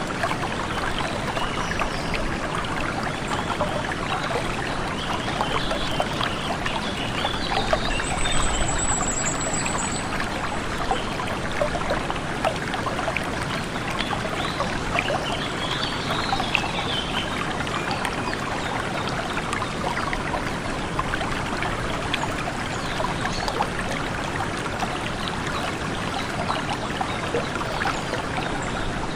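A stream of water flowing and splashing steadily. Faint bird calls come through it, with a short high trill about eight seconds in.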